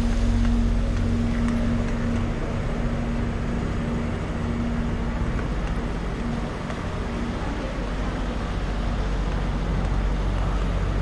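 City street traffic: motor vehicle engines running, with a steady engine drone that fades away about halfway through.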